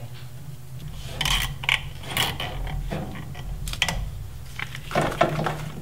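A plastic zip tie being pulled tight around a bundle of engine-bay wires and hoses, its ratchet teeth clicking in several short pulls.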